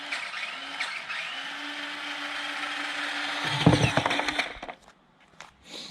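Electric drive motors and gearboxes of a JJRC Q137 8x8 skid-steer RC vehicle whining steadily as it drives. A clatter of loud knocks comes about three and a half seconds in, and the motors then stop.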